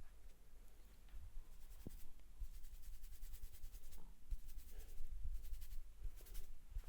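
Fingers rubbing and scratching through hair on the scalp during a head massage: quick crackling scratches that come in bursts, with soft low bumps between them.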